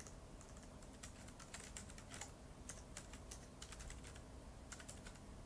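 Faint typing on a keyboard: quick, irregular key clicks.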